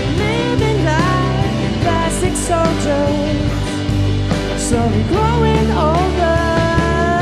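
Live rock band playing: a sung lead vocal over hollow-body electric guitars, electric bass and a drum kit with cymbal hits.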